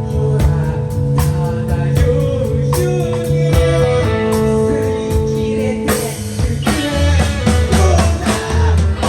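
A live rock band playing: guitar and drum kit with a steady beat, with singing in the second half.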